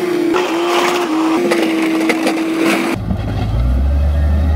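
Heavy earthmoving machinery working stone: a steady engine whine with crunching, cracking rock for about three seconds, then an abrupt change to a deep, steady engine rumble.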